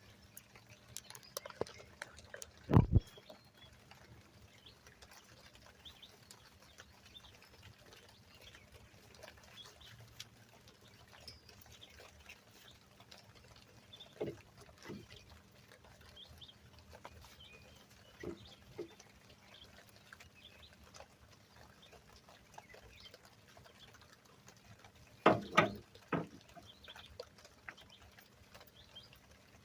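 Brake caliper parts being handled: a sharp metal knock a few seconds in, a few faint clicks and knocks, and a quick cluster of louder clunks near the end, with long quiet stretches between.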